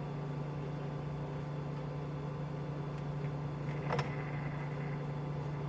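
Egg incubator running with a steady electric hum, a single light click about four seconds in.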